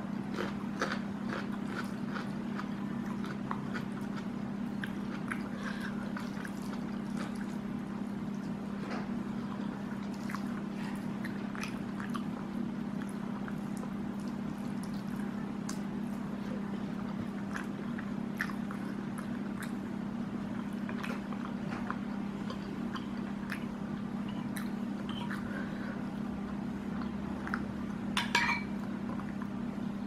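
Close-miked eating sounds of squid curry and rice eaten by hand: wet chewing and small mouth and finger clicks. A metal spoon clinks once on the plate near the end. A steady low hum runs underneath.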